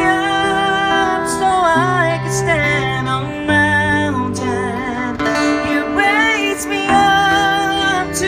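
A woman singing a slow ballad line with vibrato into a microphone, accompanied by strummed chords on an acoustic-electric guitar, both amplified through PA speakers.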